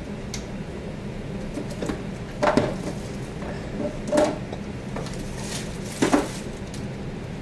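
Handling noise: objects being moved about on a countertop, with three short clattering knocks (about two and a half, four and six seconds in) and a few lighter clicks, over a steady low room hum.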